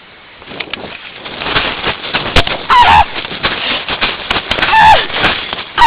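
Close rustling and knocking of someone moving with the camera during an airsoft game, with sharp snaps and four short, loud honk-like cries that fall in pitch.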